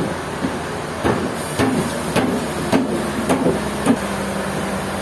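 A run of six sharp knocks, evenly spaced a little over half a second apart, as if hammering in a sawmill. A steady low machine hum sets in after the last knock.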